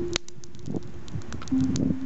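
Log campfire crackling with sharp pops, joined by two long held low tones: one at the start and a slightly lower one in the second half.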